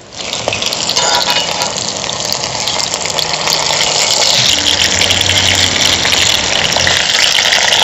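Masala-coated fish slices deep-frying in hot coconut oil in a cast-iron pan: a loud, steady sizzle.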